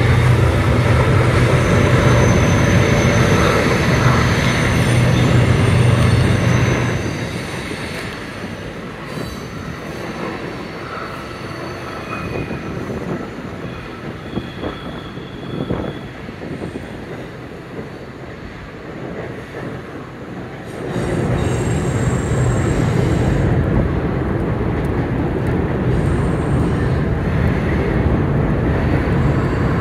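Freight train cars rolling across a steel girder railway bridge overhead: a steady low rumble with faint high squeals from the wheels. The noise drops away about seven seconds in and swells back up about twenty-one seconds in.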